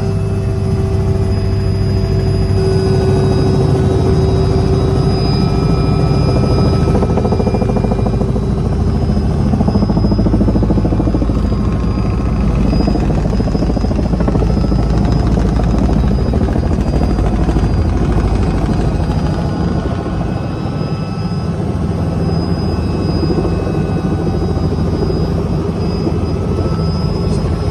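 Robinson R66 Turbine helicopter heard from inside the cabin: its Rolls-Royce RR300 turboshaft engine whines steadily over the heavy beat of the rotors as it comes in to land. The deep rumble eases a little about twenty seconds in as the helicopter settles onto the pad.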